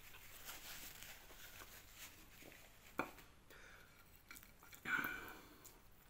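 A man quietly chewing a mouthful of chicken wing, with faint mouth and handling noises, a sharp click about three seconds in and a short, louder mouth sound near five seconds.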